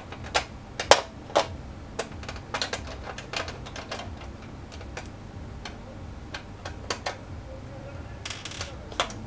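Irregular clicks and taps of a small circuit board and a screwdriver being handled against an Xbox One's metal shield plate, loudest about a second in, with a brief scrape near the end.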